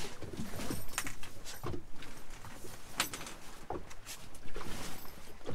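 A canvas swag being unrolled and laid out on a boat's deck: rustling cloth with scattered light knocks.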